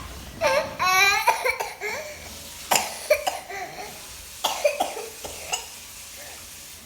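A young child gives a brief high-pitched cry, then coughs in short clusters, about ten coughs spread over a few seconds.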